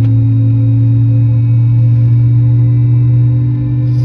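Steady, loud tonal hum of an Airbus A321's IAE V2500 jet engines at idle, heard inside the passenger cabin while the aircraft taxis.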